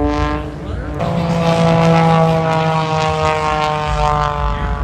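Propeller engine of an aerobatic display plane flying past, its pitch falling as it goes by. About a second in the sound breaks off and a new pass begins, again sliding slowly lower in pitch.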